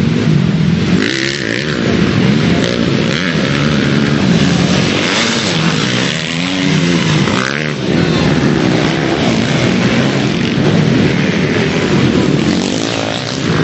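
Motocross motorcycle engines running hard and revving, the pitch climbing and dropping with the throttle. There is a pronounced rise-and-fall sweep in the middle as a bike passes close.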